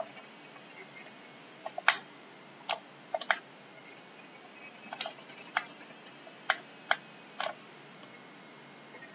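About ten sharp, irregular clicks at the computer, some in quick pairs, over faint room hiss.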